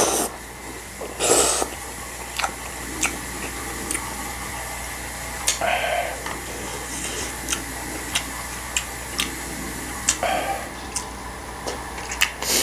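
Jjapaguri noodles slurped from a stainless steel bowl, twice at the start, then chewing. Thin metal chopsticks tap and click against the steel bowl and a plastic kimchi container again and again.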